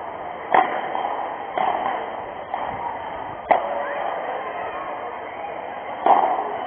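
Padel rally: the ball is struck four times with sharp pops, about one to two and a half seconds apart, over a steady background hubbub.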